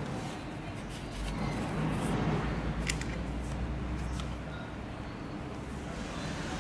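A few light clicks of small metal injector tools being handled, over a steady low hum.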